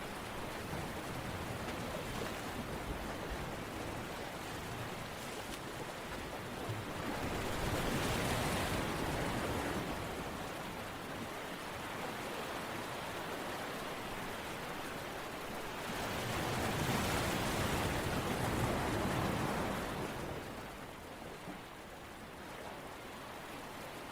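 A steady rush of water noise that swells louder twice, about seven and sixteen seconds in, each swell lasting a few seconds before easing back.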